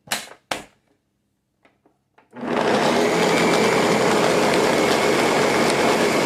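Two short knocks, then about two and a half seconds in a countertop blender switches on and runs steadily, a loud even whir with a faint high whine, blending a mixed fruit purée with syrup.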